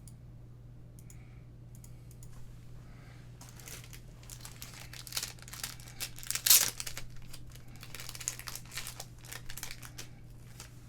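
Plastic wrapper of a trading card pack being torn open and crinkled, starting about three and a half seconds in and loudest about six and a half seconds in.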